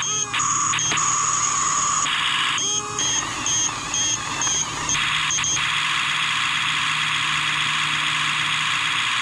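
Double E RC bulldozer running, its electric drive and gearbox whining steadily with a raspy grinding from the tracks in the second half. A high electronic beeping sounds about twice a second around the middle, typical of the toy's reversing-beep sound effect.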